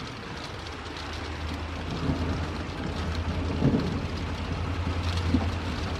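Steady rain falling, with a low rolling rumble of thunder that builds about a second in and carries on for several seconds.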